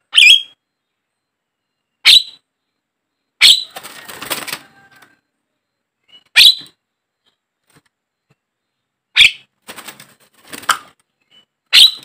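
Caged Javan myna giving loud, sharp calls, six of them a couple of seconds apart, two followed by a raspy, scratchy chatter.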